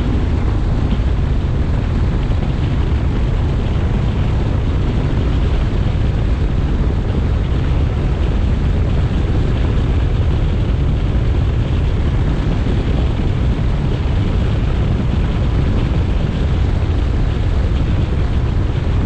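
Bass boat running fast across open water: a steady, loud rumble of the outboard motor mixed with the rush of wind on the microphone, unchanging throughout.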